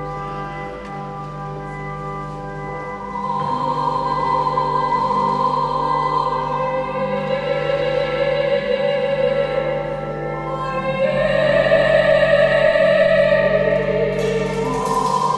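A woman sings in operatic style with a wide vibrato over sustained pipe organ chords. She comes in about three seconds in and holds long notes, growing louder past the middle.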